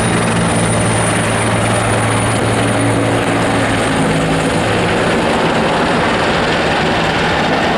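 Helicopter flying past. The drone of its rotor and engine is steady at first and weakens after about four seconds as it moves off, over a continuous rushing noise.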